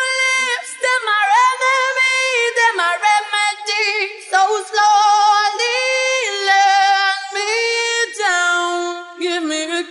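High male voice singing a cappella, with no accompaniment: held notes with vibrato and slides between pitches.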